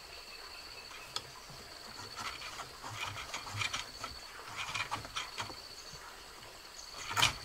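A steady, high-pitched insect trill with rapid even pulses, over soft rustling and light clicks of vegetation being handled. A sharper click comes near the end.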